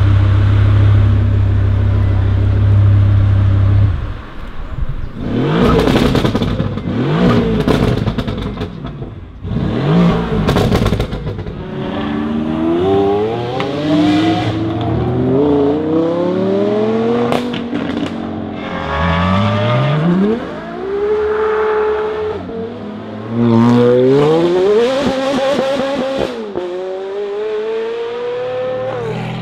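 Supercar engines, among them a Lamborghini Huracán's V10, accelerating hard away one after another. Each pull rises in pitch through several upshifts, with a few sharp pops between. For about the first four seconds a loud, steady, low engine drone comes before the accelerations start.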